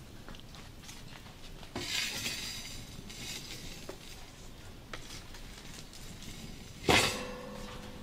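Wood campfire crackling with scattered small pops while the burning logs are poked and stirred with a stick, with a rustling scrape about two seconds in. Near the end a single sharp clink rings on briefly.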